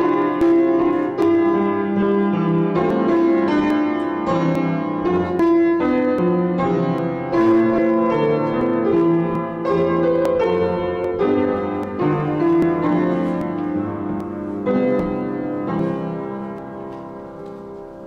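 Instrumental offertory music for a church offering, a melody of separate notes, fading out over the last few seconds.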